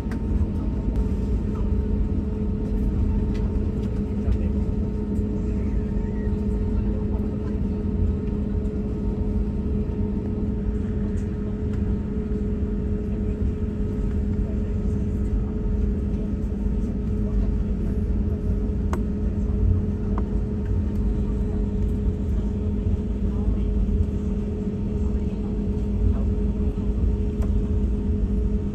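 A steady low rumble with a constant engine hum, unchanging in pitch and level throughout.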